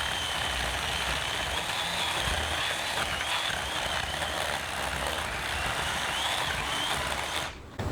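Ryobi 18-volt battery chainsaw with a 10-inch bar running and cutting a small branch stub: a steady high electric-motor whine with chain noise that wavers slightly in pitch, stopping shortly before the end. The battery is down to its last bar and the saw is overheating.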